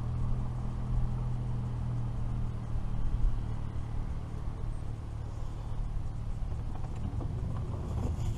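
Steady low hum of a boat motor, with wind rumbling on the microphone underneath.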